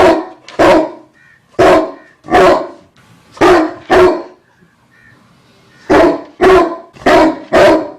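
A dog barking repeatedly: about ten loud, sharp barks, mostly in quick pairs, with a pause of about a second and a half midway.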